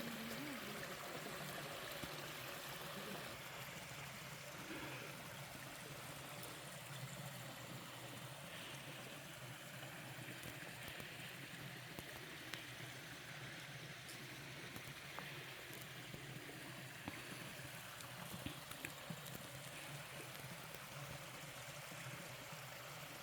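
Mountain stream water running steadily over rocks, a soft even rush with a few faint ticks.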